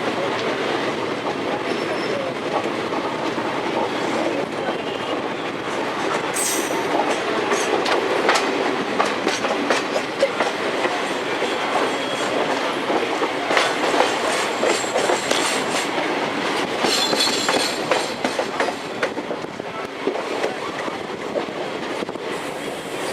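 Train running at speed, heard from aboard: a steady rumble with the wheels clattering rapidly over the rail joints.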